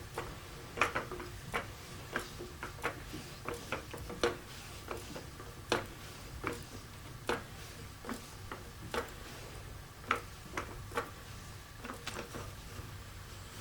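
Powerzone 380044 3-ton floor jack being worked by hand, giving a long run of sharp metallic clicks and knocks, about one or two a second.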